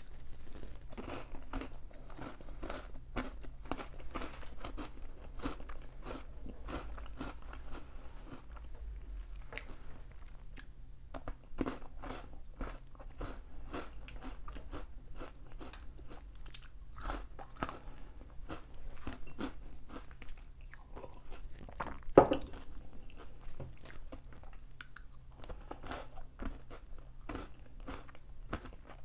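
A person biting and chewing a crunchy snack close to the microphone, an irregular run of crunches, over a steady low hum. One sharp click stands out about 22 seconds in.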